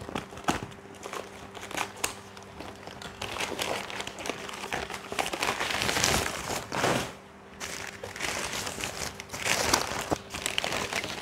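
Newspaper packing crumpling and crinkling in irregular bursts as it is unwrapped by hand. Near the start, scissors snip through a paper package.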